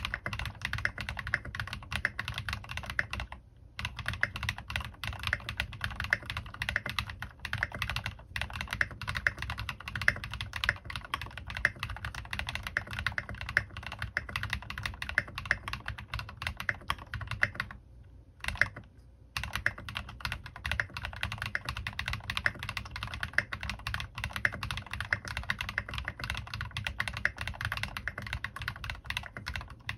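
Fast, continuous typing on a Bahm Studio Droplet mechanical keyboard with Cherry MX Black linear switches, fitted with Tecsee Vintage stems and lubed with Krytox 205g0, under Maxkey Ka keycaps: a dense run of keystrokes, with short pauses about three and a half seconds in and again around eighteen seconds in.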